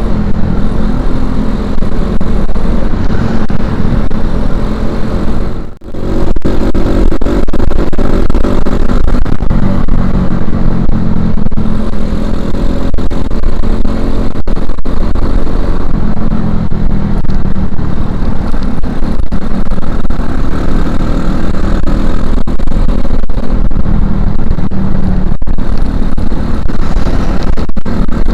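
Suzuki Shogun Axelo R 2011's single-cylinder four-stroke engine running under way, breathing through a stock Suzuki Satria FU 150 silencer. The sound drops sharply for a moment about six seconds in, then picks up again.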